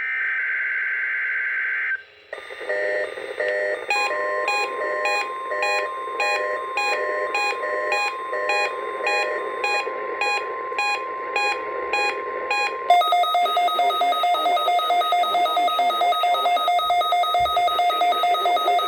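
The end of an Emergency Alert System SAME data burst, a warbling two-tone digital screech, heard off a NOAA Weather Radio broadcast during a Required Weekly Test. Then a weather radio receiver's rapid electronic alert beeps start, with the NWS 1050 Hz warning alarm tone held steady under them for about nine seconds. About thirteen seconds in the beeps switch to a different, faster pattern and keep going.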